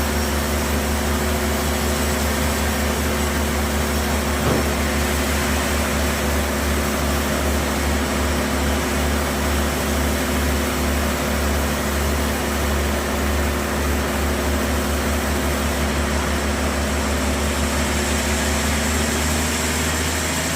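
Sawmill saw and its drive running steadily with a strong low hum while cutting through a large log, with one short knock about four and a half seconds in.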